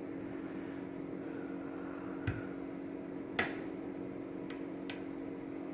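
A few small, sharp metallic clicks of lock picks and tension wrench working a Goal D9 dimple lock, the loudest about three and a half seconds in, over a steady low hum.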